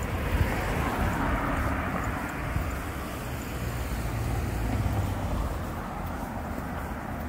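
Street traffic: vehicles passing, the tyre and engine noise swelling and fading twice.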